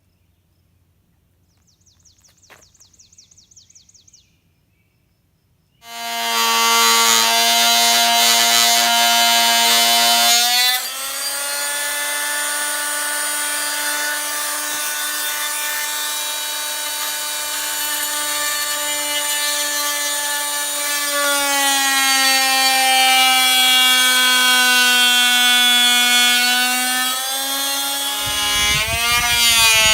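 Electric power saw starting about six seconds in and running with a steady whine; its pitch steps up slightly about ten seconds in, then drops and wavers near the end as it cuts through wood. Before it, a brief rapid ticking.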